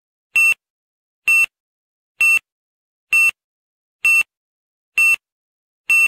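Electronic beep repeating seven times at a steady pace of about one per second, each a short, high-pitched tone.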